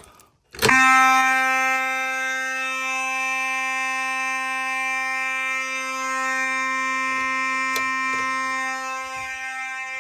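A fire alarm pull station is pulled and, about half a second in, a fire alarm horn starts sounding in one steady, unbroken buzzing tone. This is continuous coding, the alarm not pulsed.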